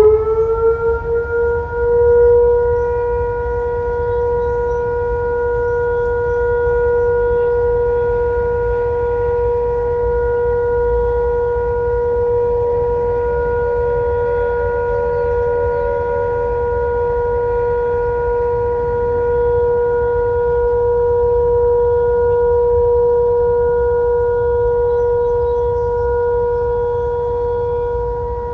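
Whelen WPS-200 electronic warning siren driven by an analog ESC-864 controller, sounding its steady alert tone on a test. It settles onto pitch in the first couple of seconds, then holds one unbroken steady tone over a low wind rumble.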